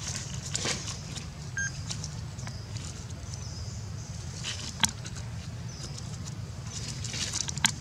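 Dry leaves rustling and crackling in short bursts as a baby monkey walks over leaf litter and presses on a dead leaf, with a sharp click a little under five seconds in and another near the end. A steady low rumble runs underneath.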